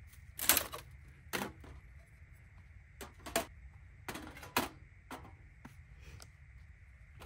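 Portable folding metal fire pit being set up: its wire frame and pan clink and rattle as they are unfolded and fitted together, in a string of short clicks and clatters. The loudest rattle comes about half a second in.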